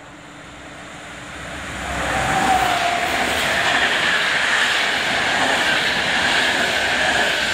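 Locomotive-hauled passenger train passing through the station at speed. The rumble of wheels on rail swells over the first two seconds and stays loud, with a high steady whine in it, then begins to fade near the end.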